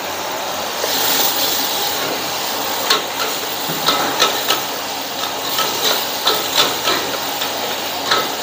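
Food sizzling in a hot pan, with a louder hissing swell about a second in, then a metal spatula knocking against the pan two or three times a second as the cook stirs.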